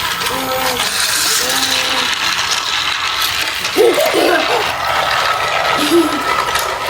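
Battery-powered toy train running with a steady whirring, clicking gear mechanism, with short children's vocal sounds over it.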